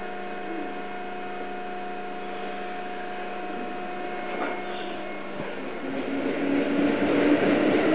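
Osaka Loop Line electric train standing at the platform with a steady electrical hum, then starting to pull away. From about five and a half seconds in, a motor whine comes in and the running noise grows louder.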